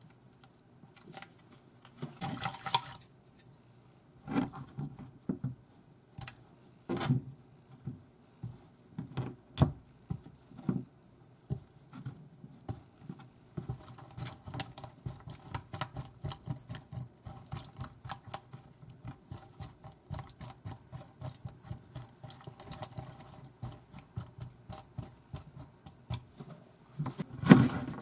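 Wooden chopsticks stirring and tossing cut eggplant pieces in a bowl of soy-based pickling marinade: scattered light knocks at first, then a long run of rapid small clicks and wet patter. Near the end come a few louder knocks of a kitchen knife chopping on a plastic cutting board.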